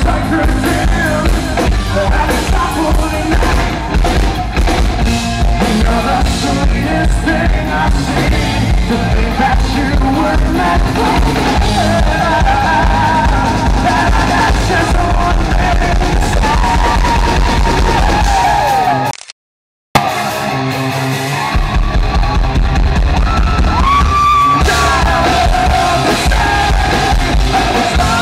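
Live rock band playing loud, with electric guitars, bass and drum kit through a concert PA. The sound drops out completely for a moment about two-thirds of the way through, then the band carries on.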